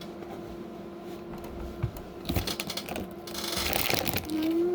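Small plastic Lego pieces clicking and rattling as someone rummages through them, sparse at first and then a dense, louder clatter with rustling from about halfway.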